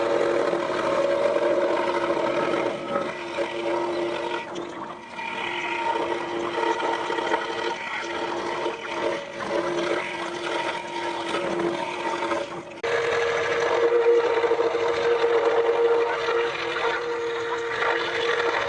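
Scroll saw running and cutting wood: a steady motor hum with the rasp of the blade. About two-thirds through, the sound jumps abruptly to a slightly higher steady hum.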